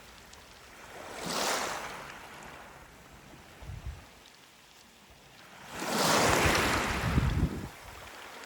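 Sea waves washing in on a stony beach: two surges of surf about five seconds apart, each swelling and falling away, the second louder and longer.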